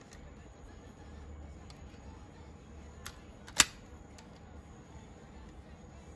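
Hard plastic parts of a DX King-Ohger combining robot toy being handled and fitted together: a few faint clicks, then one loud sharp snap about three and a half seconds in as a part locks into place.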